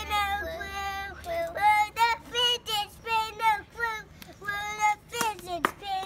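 Young children chanting in high, sing-song voices.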